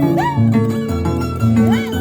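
Andean jarana music: a plucked harp plays a stepping bass line under a lead of high notes that slide up and fall back about twice a second.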